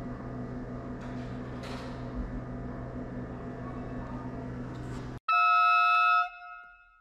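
A steady low machine hum cuts off abruptly about five seconds in. A loud electronic tone follows, held for about a second and then fading away.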